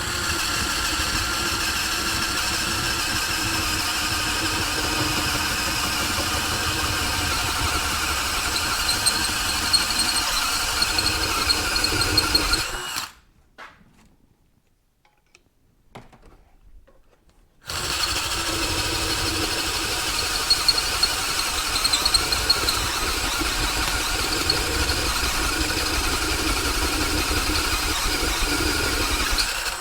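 Electric drill boring out the steel foot-peg boss of a Yamaha AT-1 swing arm, the bit being stepped up in size. It runs steadily under load, stops about 13 seconds in for around five seconds, then runs again.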